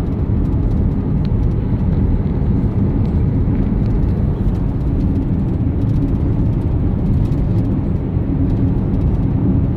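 Car driving at a steady speed: a constant low rumble of road and engine noise.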